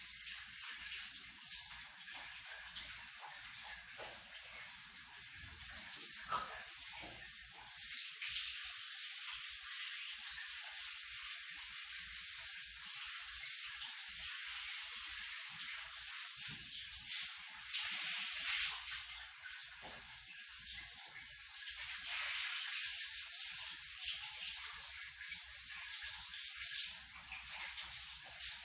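Shower running, a steady spray of water with the level swelling and dipping slightly.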